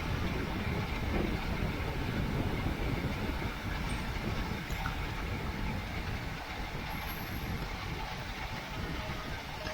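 Steady rush of wind buffeting the microphone, with road noise from a bicycle moving at race speed.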